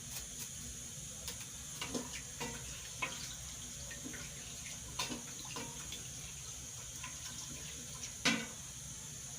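Spoon stirring a pot of melting oils and waxes for homemade conditioner, with liquid sloshing and scattered knocks and scrapes against the pot; the loudest knock comes about eight seconds in. A steady hiss runs underneath.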